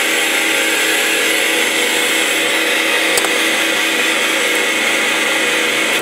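Heavily distorted electric guitar holding a sustained chord, heard as a steady, dense, noisy drone with no new attacks.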